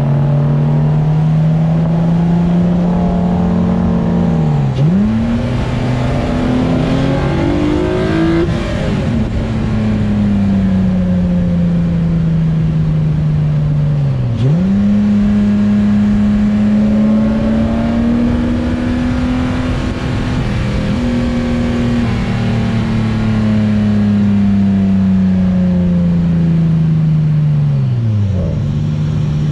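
Nissan VQ35DE V6, swapped into a Datsun S30 Z, running on a track lap. The engine note rises and falls slowly with the throttle, and three times (about 5, 14 and 28 seconds in) the pitch dips sharply and comes straight back up.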